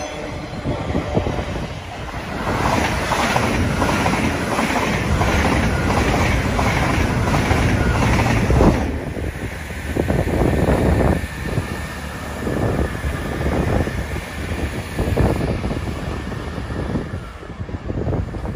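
Elizabeth line Class 345 electric train passing close through the platform, its wheels clattering over the rail joints with some wheel squeal. About nine seconds in, the noise drops abruptly to a lower, uneven rumble as a GWR diesel multiple unit runs along a farther line.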